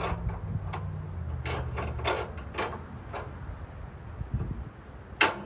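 Clicks and clunks of metal parts being handled and fastened as a hose and wand holder is bolted onto the pressure washer's frame, about a dozen irregular knocks with one sharp, loud knock near the end.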